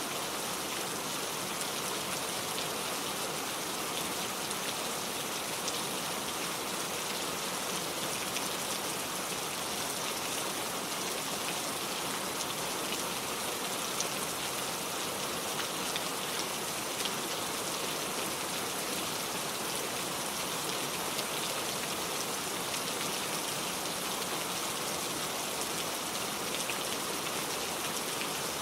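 Heavy rain falling steadily, a dense hiss of drops striking surfaces, with individual drop impacts speckled through it.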